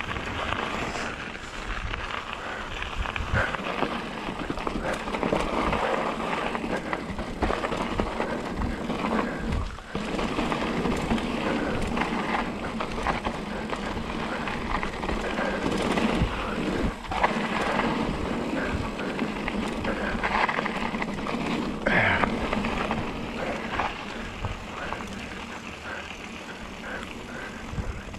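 Mountain bike rolling fast down a dirt and rock trail: a steady rush of tyre noise over gravel and dirt, with scattered knocks and rattles as the bike hits bumps.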